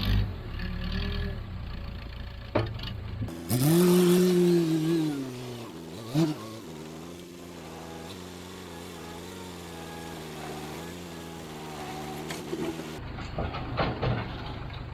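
Diesel farm-machinery engine revving up and easing back, then running steadily under work with a slightly wavering pitch. The sound changes abruptly about three seconds in and again near the end.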